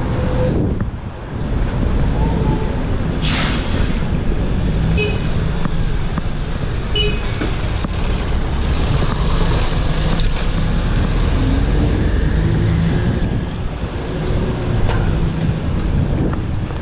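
Busy city road traffic heard from a bicycle: a steady rumble of passing cars and buses, with a short loud hiss about three seconds in.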